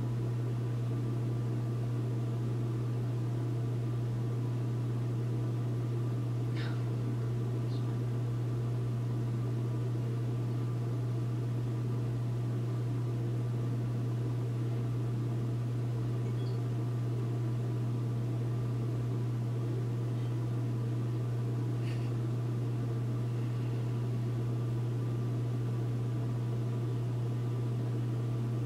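A steady low hum over a constant hiss of background noise, with a couple of faint ticks.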